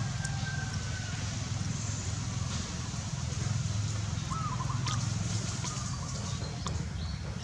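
A steady low rumble, with a few short chirps from birds about four and a half and five and a half seconds in.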